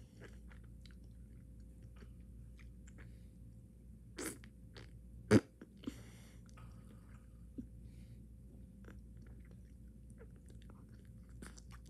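Bubblegum being chewed close to the microphone: soft wet smacks and clicks of the mouth, with one loud sharp snap about five seconds in.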